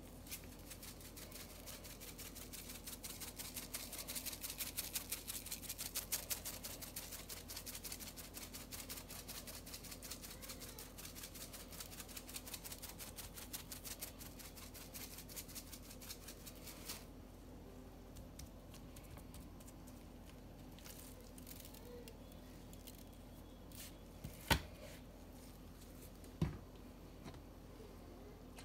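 Shaker bottle of smoky salt and cracked pepper rub shaken rapidly over pork ribs: a fast, even rattle and patter of seasoning that swells, then tapers off and stops about halfway through. Two short sharp knocks follow later.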